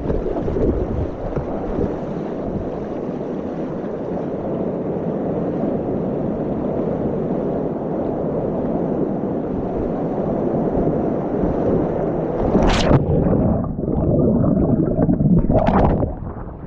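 Steady rush of wind on the microphone and water hissing along a sea kayak's hull as it surfs a wave. About 13 seconds in comes a sharp splash, followed by a few irregular paddle splashes near the end as the blade is planted in the water.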